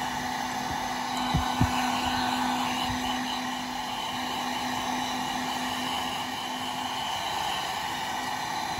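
Handheld hair dryer running steadily, its fan and motor giving an even rushing blow with a low hum, aimed at a small drone frame to dry it. Two brief low knocks about a second and a half in.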